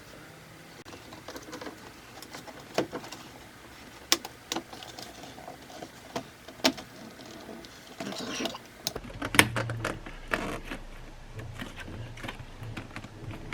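Scattered sharp clicks and knocks of hand work on a rubber intake tube, its hose clamp and the throttle body while the tube is refitted. From about two-thirds in, the clicks give way to denser rustling and rubbing handling noise with a low hum underneath.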